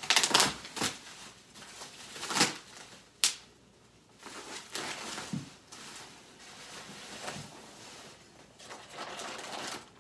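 Foam packing peanuts and packaging rustling and crunching as hands rummage through a box, with a few short, sharper crackles in the first three seconds, then softer rustling.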